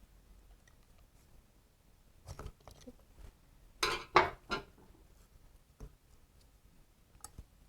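A few sharp metallic clinks and knocks from hand tools and small engine parts being handled, with the loudest cluster of three about four seconds in.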